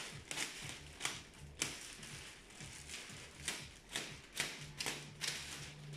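Thin clear plastic wrapping crinkling and rustling in irregular sharp crackles as it is pulled and cut away from a boxed pet sofa.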